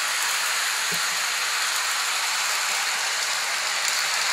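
Lionel electric toy train running with a steady hiss, with a single soft knock about a second in.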